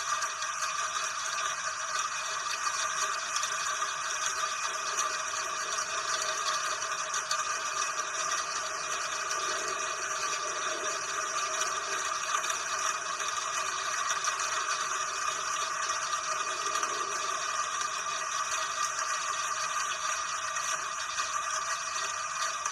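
Steady rain, an even hiss with no thunder.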